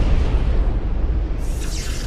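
Cinematic logo-intro sound effect: a deep rumbling boom slowly dying away, joined about a second and a half in by a crackling hiss like electric sparks.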